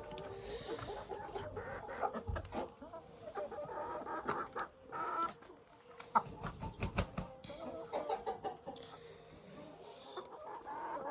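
Chickens clucking, many short calls overlapping throughout, with a cluster of sharp clicks or knocks about six to seven seconds in.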